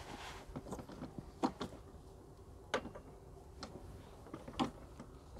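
Handle sections of a Parkside electric scarifier clicking and knocking together as the upper part of the handle is fitted on, with three sharper knocks about a second and a half, three seconds and four and a half seconds in.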